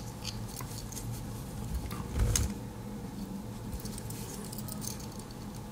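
Handling noise from two small aluminium-scaled Swiss Army knives being turned over in the hands: light scattered clicks and scratchy ticks, with a soft knock a little over two seconds in.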